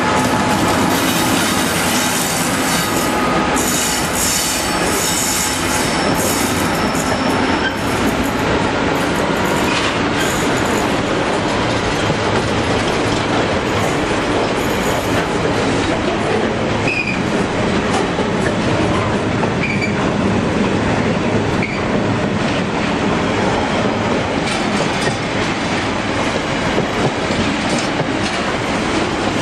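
Class 66 diesel locomotive, its EMD two-stroke V12 running as it passes close by, followed by a long freight train of container flat wagons rumbling past steadily, wheels clacking over rail joints, with a couple of brief high wheel squeals later on.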